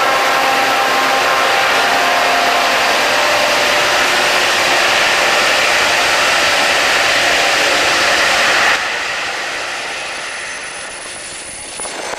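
Freight train hauled by SD45-2 diesel locomotives running with a steady rushing roar. The roar drops off abruptly about nine seconds in and tapers to a quieter rumble.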